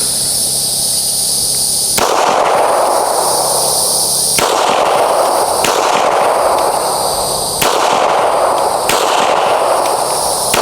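Five single gunshots fired slowly, one every one to two seconds, over a steady high buzz of insects.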